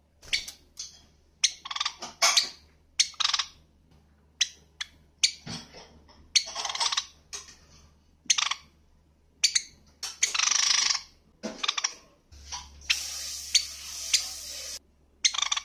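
White Java sparrow calling over and over with short, sharp, high chirps, some of them in quick pairs, and a few longer, noisier calls.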